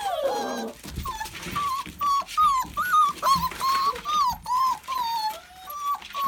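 Young lurcher puppies, about six weeks old, whimpering. A falling whine at the start is followed by a string of short, high whimpers, about two or three a second.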